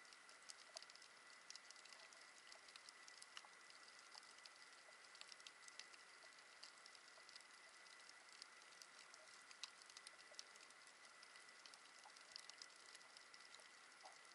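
Faint underwater reef crackle, with scattered irregular clicks over a steady hiss, recorded through an action camera's waterproof housing. A thin steady high tone runs under it.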